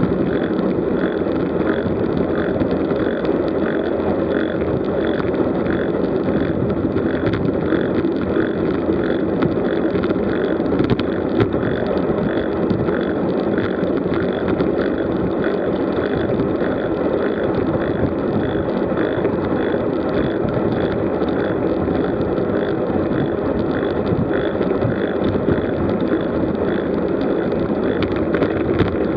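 Steady wind rushing over the action camera's microphone, with tyre and road noise from a road bike travelling at about 40 km/h. A faint regular ticking repeats about twice a second.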